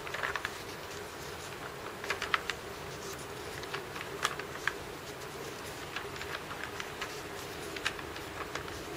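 Paper pages of a sketchbook being turned by hand: soft rustles and crisp flicks and taps of paper, with louder clusters around two and four seconds in. A steady hum runs underneath.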